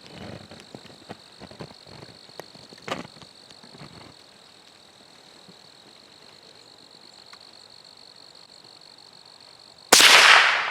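Steady high-pitched insect buzz, with a few faint rustles and clicks in the first few seconds. Near the end, a single loud gunshot rings out, with a short echoing tail.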